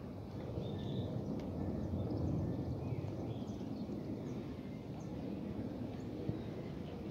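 Outdoor ambience: a low, uneven rumble of wind on the microphone, with faint, scattered bird chirps.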